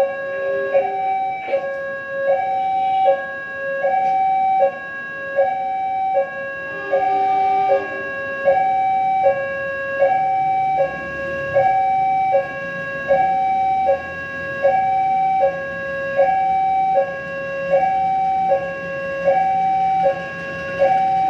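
Railway level-crossing warning alarm: a two-tone electronic signal alternating between a high and a low pitch about every three-quarters of a second, warning that a train is approaching. A lower horn-like tone sounds briefly near the start and again about seven seconds in.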